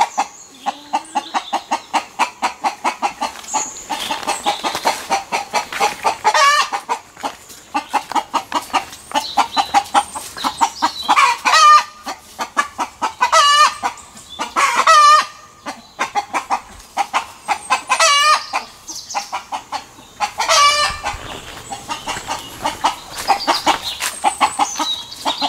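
Chickens clucking in quick runs of several calls a second, with roosters crowing in loud drawn-out calls of about a second each, repeated many times through the middle.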